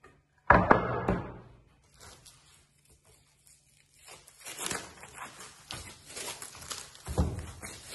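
A tonewood board set down on the wooden workbench with a knock about half a second in. From about four seconds, plastic stretch wrap is cut and torn off a wrapped bundle of wood, crackling and crinkling.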